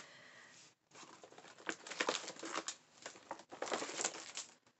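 Shopping bag and packaging crinkling and rustling as hands rummage through it for the next item, in irregular rustles starting about a second in.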